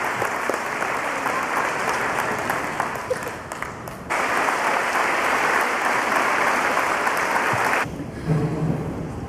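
Crowd applauding in a gymnasium for an award winner. The clapping dips briefly a few seconds in and cuts off suddenly near the end.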